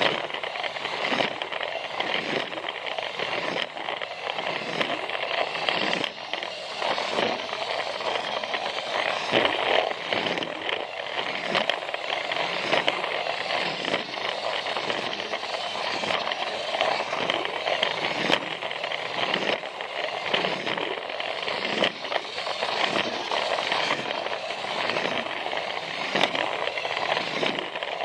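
Battery-powered Plarail toy train running along plastic track: the motor and gears whir steadily while the plastic wheels rattle and click over the track joints in a regular rhythm.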